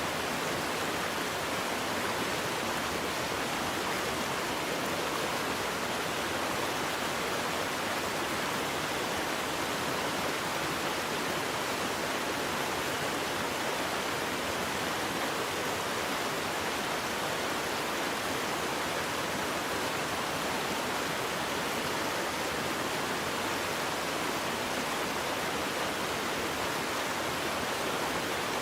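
Waterfall: water falling and rushing in a steady, even roar of noise that doesn't change.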